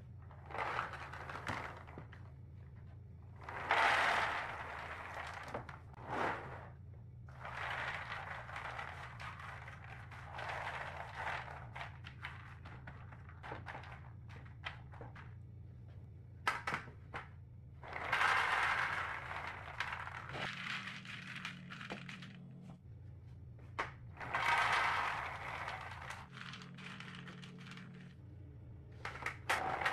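Raw shelled peanuts poured and spread by hand over perforated aluminium baking trays, rattling and scraping on the metal in several bursts of a second or two, with a few sharp clicks between. A low steady hum runs underneath.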